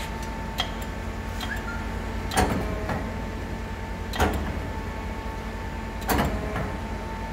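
Ikegai TUR-26 CNC turning machine running with a steady hum and a few constant tones, broken by sharp mechanical clunks about every two seconds, three of them loud and some ringing briefly after.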